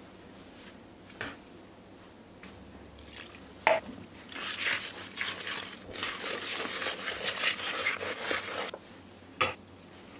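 A spoon stirring and scraping wet investment plaster in a plastic tub for about four seconds, with a sharp knock just before the stirring and another near the end.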